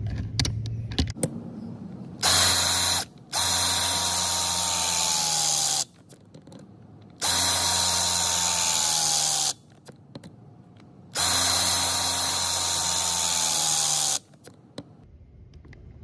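Milwaukee M18 Force Logic 12-ton cordless hydraulic crimper crimping a lug onto 750 MCM cable. Its motor and pump run three times for about two and a half seconds each, with a short burst just before the first run. Each run is a steady whine that drops slightly in pitch and stops when the tool ends the cycle, with small clicks of handling and repositioning between runs.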